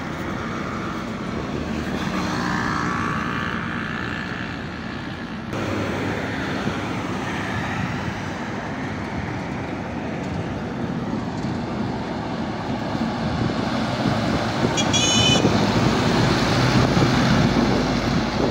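Highway traffic: heavy trucks driving past, growing louder near the end as one passes close. A brief high-pitched tone sounds about 15 seconds in.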